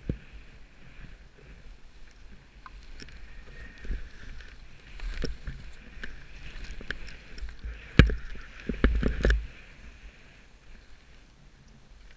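Skis sliding over snow with a steady hiss, under a low wind rumble on the microphone, broken by several sharp knocks, the loudest about eight seconds in.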